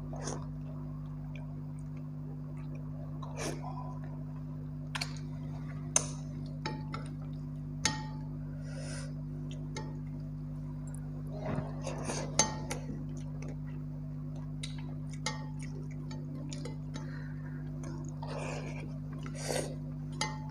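Close-up eating sounds of pakhal (watered rice) eaten by hand: wet chewing and lip smacks, fingers working rice on a steel plate, and a few sharp clinks. A steady low hum runs underneath.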